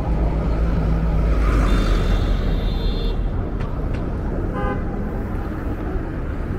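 City street traffic with a low engine rumble, heaviest in the first few seconds, a high squeal about two seconds in, and a short car horn toot about four and a half seconds in.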